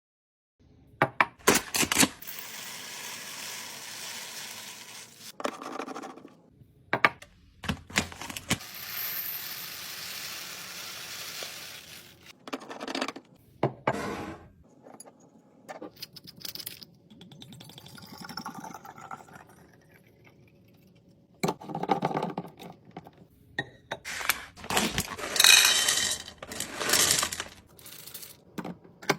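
Restocking handling sounds: sharp clicks, clinks and scrapes of containers and packaging being handled and set down, with stretches of steady hiss and a burst of louder clattering near the end.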